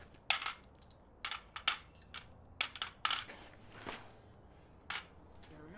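Metal tools and parts clinking and clattering against each other: about seven sharp, irregular metallic clinks with a brief high ring.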